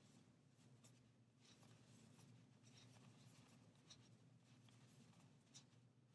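Very faint rustling of a metal crochet hook pulling loops through thick chenille blanket yarn, with a few soft clicks, over a low steady hum.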